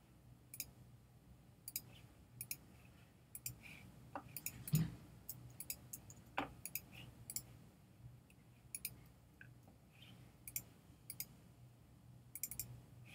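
Irregular sharp clicks of a computer mouse and keyboard being worked, sometimes in quick runs of several, with one dull thump about five seconds in, over a faint low hum.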